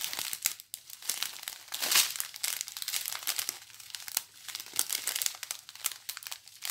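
Small clear zip-lock plastic bags of diamond-painting drills crinkling irregularly as they are handled and turned over, loudest about two seconds in.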